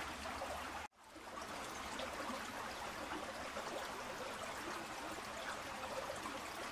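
Stream water flowing steadily, an even rushing wash. It cuts out for an instant just under a second in, then fades back in.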